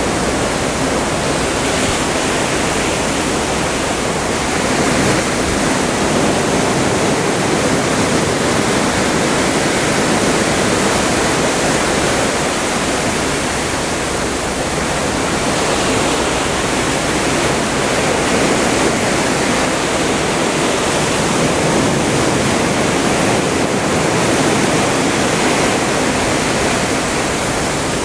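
Atlantic seawater rushing and churning along the side of a moving ship, a steady loud rush that swells and eases slightly every few seconds.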